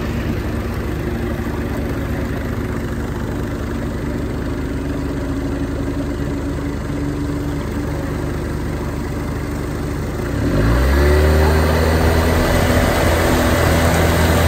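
Boat motor running steadily under way, then opening up about ten seconds in, its pitch rising quickly and settling higher and louder, with more water rush as the boat speeds up.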